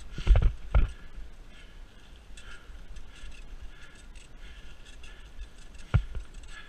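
Mountain bike riding over a leaf-strewn dirt trail: a steady crackle and rustle of the tyres on dry leaves. A few loud knocks come as the bike jolts over bumps, two close together just after the start and one near the end.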